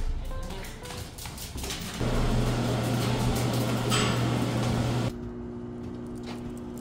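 Steady mechanical hum with a strong low drone, which gives way about five seconds in to a quieter, higher-pitched steady hum.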